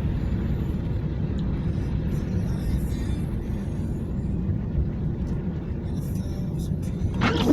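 Steady low rumble of a car driving. A brief louder sound with a changing pitch comes near the end.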